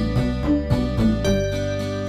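Background music: a run of plucked notes over held chords.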